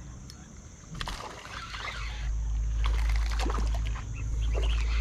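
Water splashing and sloshing from a hooked smallmouth bass being fought and reeled in on a spinning rod, in irregular splashes starting about a second in, with a low rumble underneath from about two seconds in.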